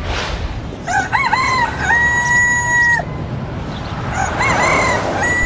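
A brief rushing noise at the start, then a rooster crowing twice. Each crow opens with a few short rising-and-falling notes and ends in one long held note.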